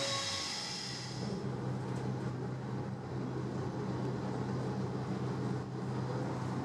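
DB Class 425 electric multiple unit pulling away, its motor tones fading over the first second or so. The sound then changes to the steady low hum and rumble heard inside the passenger compartment of the same type of train running along the line.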